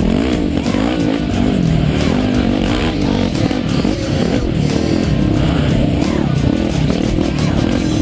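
Yamaha YFZ450X quad's single-cylinder four-stroke engine revving up and down without a break under hard riding.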